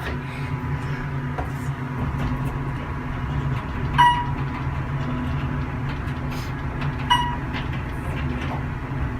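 Inclined elevator car running on its rails: a steady low hum and rumble with a faint steady whine, and a short ding about four seconds in and again about seven seconds in.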